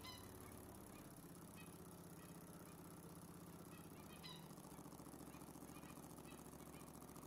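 Small homemade double-acting oscillating (wobbler) engine running slowly, heard faintly as a soft, even rhythmic pulsing with a few light clicks.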